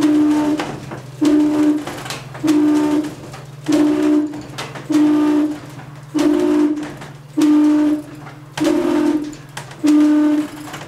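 Parish church bell ringing, struck about once every 1.2 seconds, each stroke a clear ringing tone that dies away before the next, over a continuous low hum.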